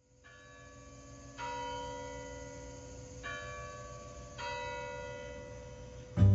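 Church bells ringing, fading in: four strikes of different-pitched bells, each left to ring on. Near the end, louder guitar music comes in.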